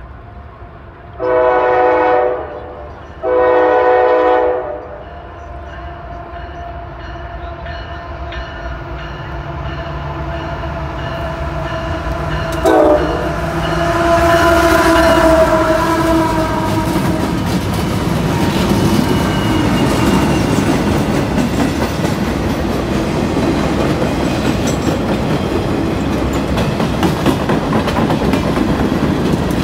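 CSX freight train: its locomotive horn sounds two long blasts about a second and a half each, then the diesel locomotives draw near and pass with a rising rumble, followed by freight cars rolling by with a steady clickety-clack of wheels over the rail joints.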